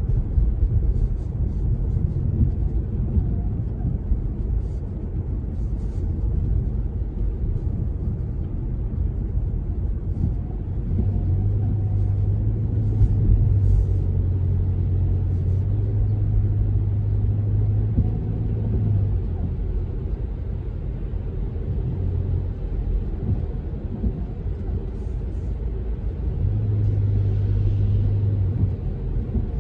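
Car driving on a wet road, heard from inside the cabin: a steady low rumble of engine and tyres. A low hum joins in for several seconds in the middle and again near the end.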